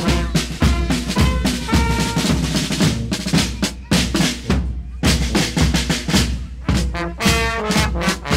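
Carnival brass band playing in the street: euphonium and tubas over snare and bass drum beating a steady march rhythm. The playing drops away briefly a little past the middle, then the band comes back in.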